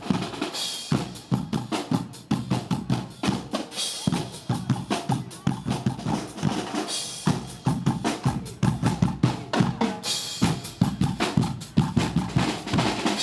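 Guggenmusik carnival band playing: a fast, driving drum beat with bass drum and snare under trombones and sousaphones, with cymbal crashes about three times.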